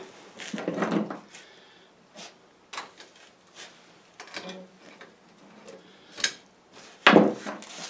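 Steel cross-link tire chain on a tractor's rear wheel clinking and clattering now and then as it is handled and hooked up, with a louder clank about seven seconds in.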